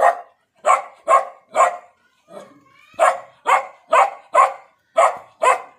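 Red Gultair dog (Pakistani bull terrier) barking repeatedly, about two barks a second, with a brief pause about two seconds in.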